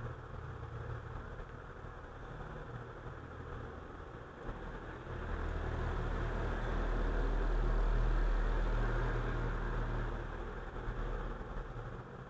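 Low engine rumble of a passing motor vehicle, growing louder about five seconds in and fading again after about ten seconds, over a steady low hum.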